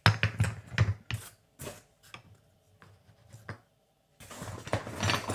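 Estonian parmupil jaw harps in wooden blocks clacking and knocking together as they are picked up and set down on a wooden table: a run of sharp taps, then steadier rubbing and rustling from about four seconds in.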